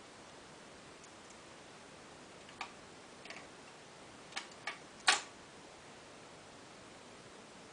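Faint steady hiss with five sharp, irregularly spaced clicks in the middle, the last and loudest about five seconds in.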